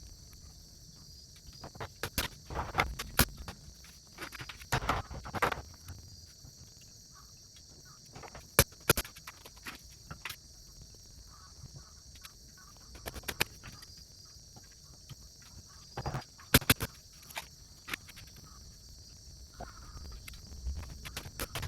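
Crickets chirring steadily, with scattered sharp knocks and clicks of wooden pieces being handled, the loudest a double knock about 16 seconds in.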